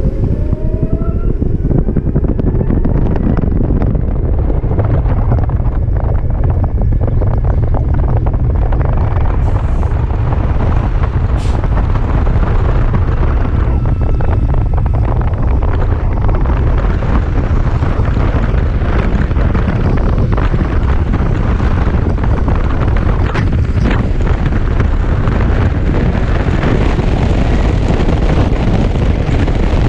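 Loud, steady wind noise buffeting the microphone of a rider on a BMW C-Evolution electric scooter as it gathers speed to highway pace; there is no engine note, only the rush of air and road.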